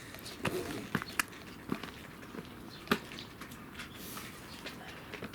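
A cat eating: scattered small clicks and smacks of chewing at irregular intervals, the loudest about three seconds in.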